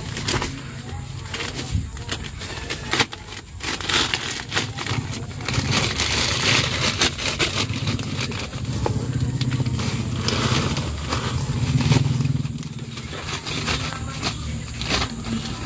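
Black plastic polybags crinkling and soil being scooped and pressed into them by hand, a run of crackling and scraping sounds. A low, steady hum runs underneath, louder in the middle and again near the end.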